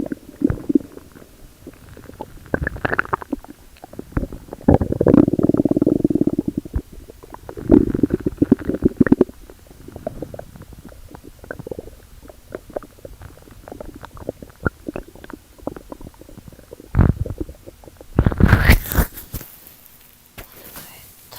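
Stomach growling and gurgling: irregular low rumbles broken by small bubbly pops, with the longest growls about five and eight seconds in. A louder, harsher burst comes near the end.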